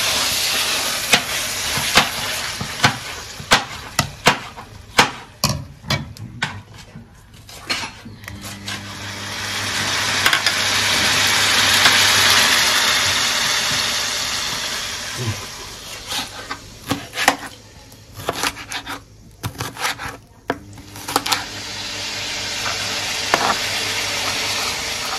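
Chef's knife chopping green bell pepper on a plastic cutting board in quick, irregular strokes. About eight seconds in, this gives way to chicken pieces sizzling in olive oil in a paella pan, swelling and then fading. Chopping strokes return from about sixteen seconds on.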